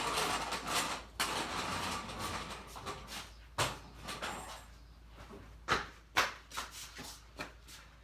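Hands moving and handling a part on a riding lawnmower: scraping and rustling for about three seconds, then a string of knocks and clunks, the loudest about halfway through and again near six seconds in.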